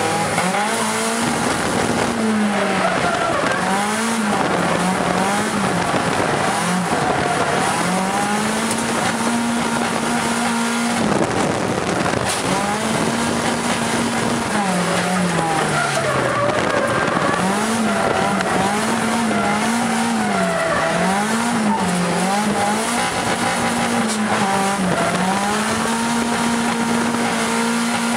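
SR20DET 2.0 L turbo four-cylinder in an AE86 Trueno, heard from inside the cabin while drifting: the revs climb and hold flat at the top for a second or two at a time, fall away, and in places rise and fall about once a second under throttle blips. Tyre squeal from the sliding car runs along with the engine.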